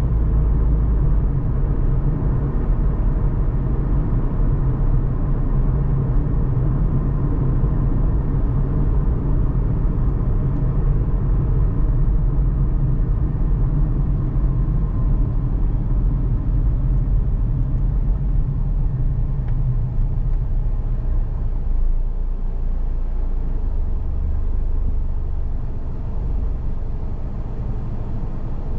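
A car driving: steady low engine and road rumble, easing off a little about twenty seconds in.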